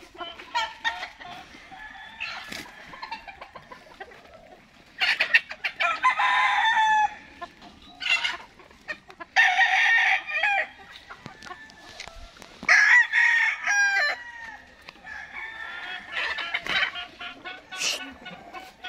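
Gamefowl roosters crowing several times, the loudest crows about 5, 9 and 13 seconds in, with hens clucking in between.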